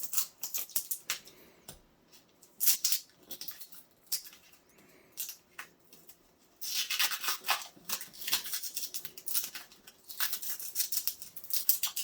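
Packaging being handled: a run of short, crisp crackles and rustles, scattered at first, then in two dense bursts in the second half.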